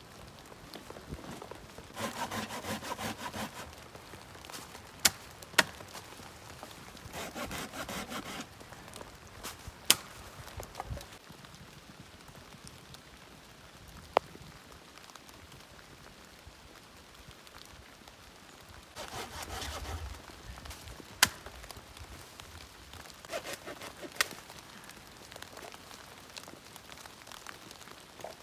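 Wood being sawn by hand in four short bursts of quick strokes, with single sharp cracks or knocks of wood between them.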